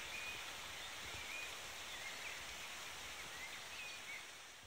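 Outdoor forest ambience: a steady hiss with small birds chirping now and then, fading out near the end.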